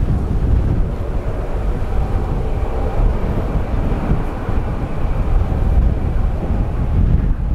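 Jet engines of a twin-engine widebody airliner at takeoff thrust as it rotates and lifts off: a deep, steady rumble.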